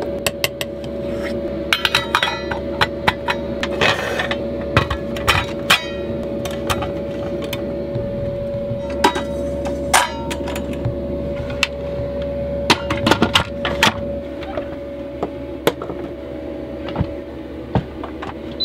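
A utensil clinking and scraping against stainless steel steamer pans, and the pans knocking against an Instant Pot's metal insert as they are lowered in. There are many short, sharp clinks over a steady hum.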